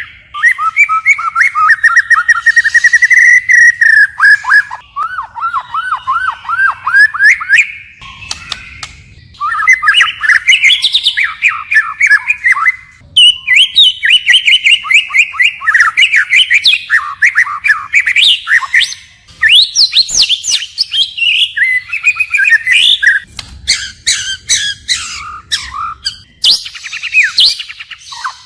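White-rumped shama singing a long, varied song of rapid whistled phrases, switching from one phrase type to the next, with short pauses about 8 and 13 seconds in.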